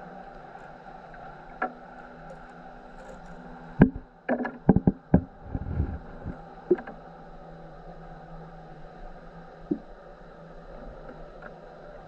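Muffled water lapping around a half-submerged camera, with a quick run of sharp knocks about four seconds in and a few single knocks elsewhere.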